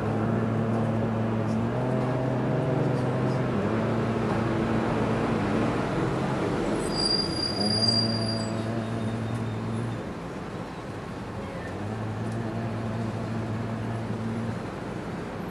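Low, droning chant of long-held notes, each lasting a few seconds and changing pitch between breaths, with a dip in level about two-thirds of the way through.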